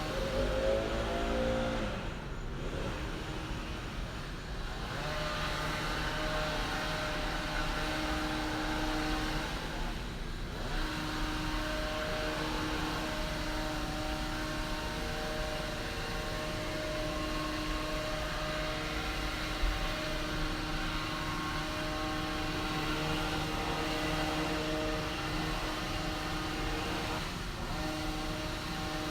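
Chainsaw engine falling in pitch from high revs over the first couple of seconds, then running steadily at a lower, even speed.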